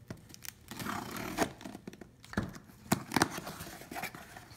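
A box cutter slitting the packing tape on a cardboard shipping box, then the cardboard flaps being pulled open: scraping and rustling cardboard with several sharp clicks.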